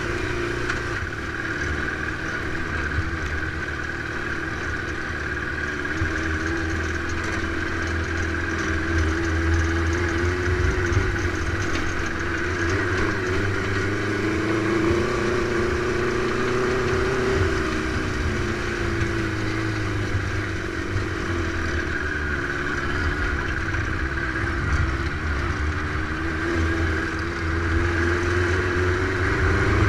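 A dune buggy's Suzuki GSX 600 inline-four motorcycle engine running while driving, heard from on board, its note rising and falling gently with the throttle and rising again near the end.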